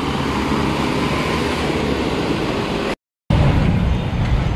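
Steady road traffic noise from passing cars and trucks, a continuous rumble. It drops out completely for a moment about three seconds in, then a louder, lower rumble follows.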